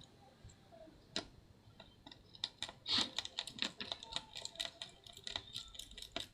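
Small, irregular clicks and ticks of a precision screwdriver working on the tiny screws and the metal chassis of a MacBook Pro, as the screen-hinge screws are taken out.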